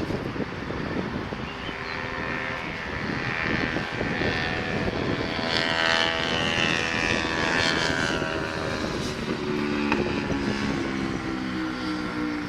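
Steam-hauled train of wagons passing, a steady rumble of running gear with a ringing tone that falls in pitch through the middle, and a lower tone coming in near the end.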